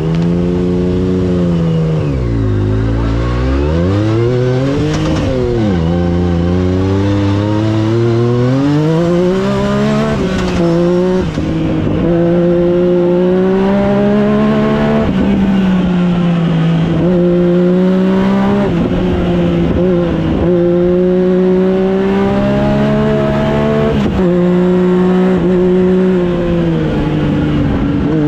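Side-by-side with a swapped-in Yamaha Viper 1050 snowmobile three-cylinder engine, driven hard: the engine note climbs under throttle and drops back sharply again and again, every few seconds. Heard from inside the open cab.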